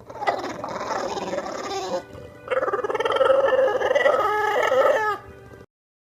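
A dog vocalizing in long, wavering, pitched calls, in two stretches with a short break between them.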